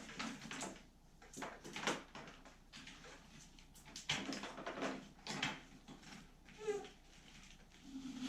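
Irregular rustling, scraping and light knocks of a pressure washer's power cord and hose being untangled and handled by hand.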